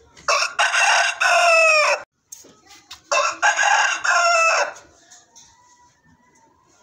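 Rooster crowing twice, each crow a loud call of about a second and a half, the first sliding down in pitch at its end.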